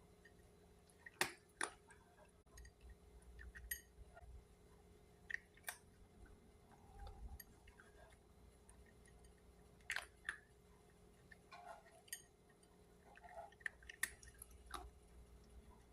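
A cat eating: faint, irregular sharp clicks and crunches of chewing, one or two a second, with pauses between.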